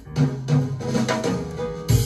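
Recorded pop music with drum kit, bass and piano, played from a vinyl record through a pair of large horn loudspeakers in a room; a strong drum hit lands near the end.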